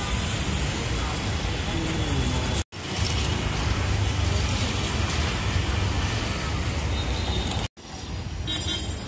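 City street traffic noise: a steady rumble and hiss of passing vehicles. It drops out abruptly to silence twice, about two and a half seconds in and near the end, and is a little quieter after the second gap.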